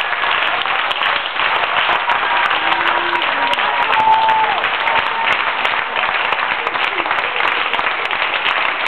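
Audience applauding steadily, with a few high voices calling out over the clapping.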